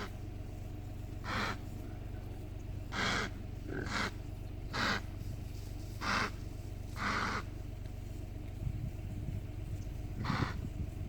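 Male impalas calling: a series of harsh roaring grunts, about seven spaced a second or so apart, with a pause before two more near the end. This is the rutting call that impala rams give when they fight over females. A low steady hum runs underneath.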